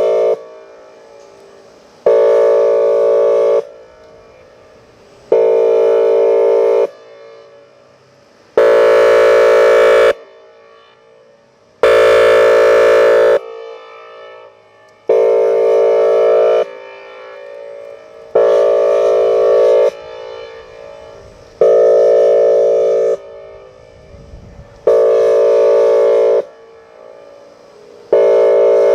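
Whelen Vortex R4 electronic outdoor warning siren sounding its air-horn signal: loud steady horn blasts about a second and a half long, repeating roughly every three seconds with short gaps between. Two blasts near the middle sound harsher than the rest.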